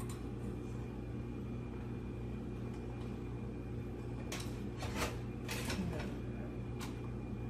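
Cables being handled inside a PC case: a few sharp clicks and rustles from about halfway through, over a steady low hum.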